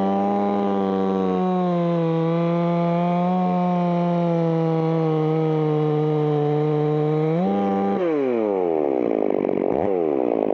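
Two-stroke chainsaw held at high revs, cutting through a blue gum limb, its pitch steady. About eight seconds in the throttle is released and the revs fall away.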